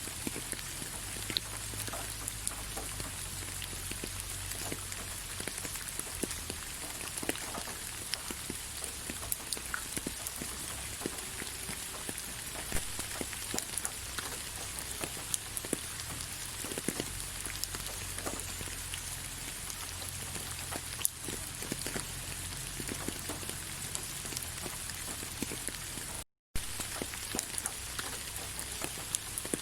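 Steady rain falling on leaves: an even hiss with many scattered drops tapping. The sound cuts out completely for a split second near the end.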